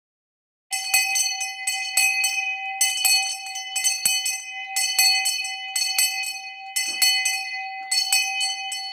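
Hand bell shaken vigorously as a dinner bell, starting about a second in: a fast run of clanging strikes, a few a second, over one steady ringing tone.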